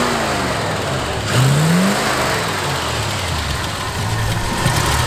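Old pickup truck's engine running with the hood open; its pitch falls back at the start, rises again in a short rev about a second and a half in, then settles to a steady idle.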